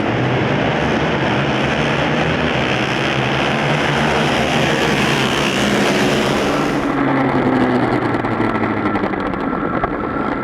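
250cc four-stroke racing motorcycles running at speed on track. The sharper high end of the sound falls away about seven seconds in.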